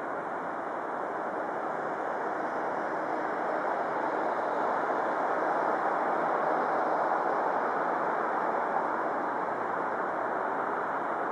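Steady rushing noise, swelling a little in the middle and easing near the end.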